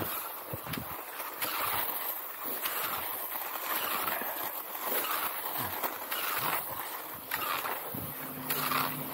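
Cross-country skis swishing along classic tracks in the snow with the push of each stride and pole plant, in a rhythm a little faster than once a second. About eight seconds in, a low steady engine hum joins in.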